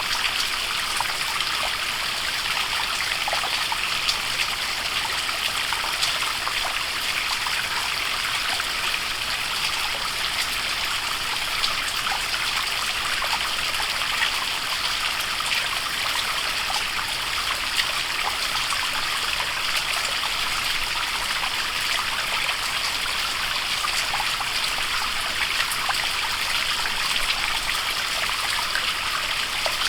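Waterfall splashing steadily into its pool: an even hiss of falling water, flecked with many small splashes and drips.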